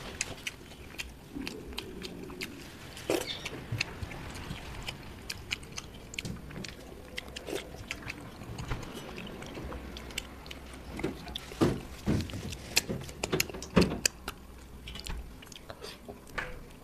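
Eating by hand from a metal plate: scattered small clicks and scrapes of fingers picking fish off its bones, with chewing, the clicks thickest a little past the middle; near the end, sucking on a fish bone.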